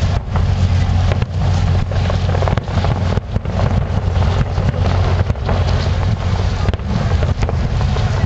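Aerial fireworks going off, several sharp bangs at uneven intervals over a steady low rumble.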